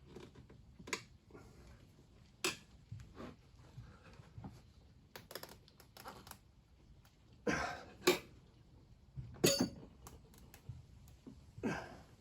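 Tyre levers clicking and scraping against a wheel rim as a tubed tyre's bead is levered onto it, with scattered light clicks and a few louder clunking scrapes in the second half.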